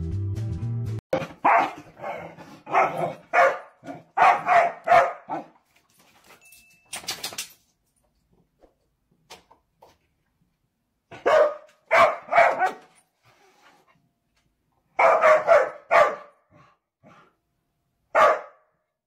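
A dog barking in short volleys: a quick run of about eight barks, then after pauses two groups of three or four, and a single bark near the end.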